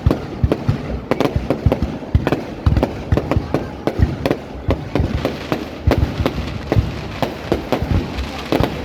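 Fireworks display going off: a rapid, continuous string of sharp bangs and crackles, several a second, over a steady rumble of distant bursts.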